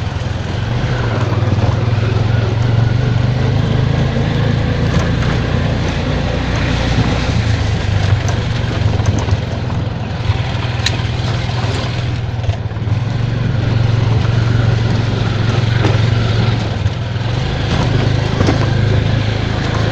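Small three-wheeler auto-rickshaw engine running steadily under way, heard from inside the cab, with road noise and a few sharp rattles from the rough dirt lane.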